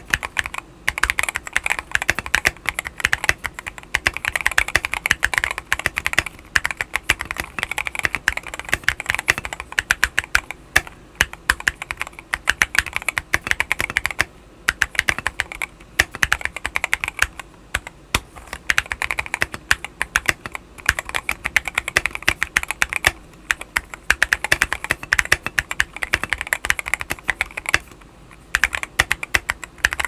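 Fast, continuous typing on an Akko MOD007 mechanical keyboard modded with an FR4 plate, PE foam and tempest tape, fitted with NK Silk Black linear switches and XDA-profile PBT keycaps. The rapid key clacks pause briefly a few times.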